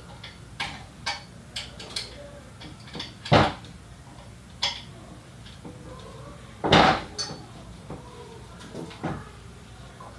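Hand tool clicking and clinking against metal scooter parts while the ICS compression bolt is cranked tight, with louder knocks about three and a half and seven seconds in.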